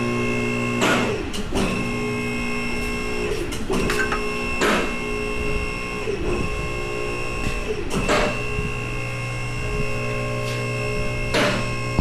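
Vehicle lift's electric hydraulic pump motor running with a steady hum, stopping and restarting in spurts, with a sharp clunk at each change as the lift raises the truck cab.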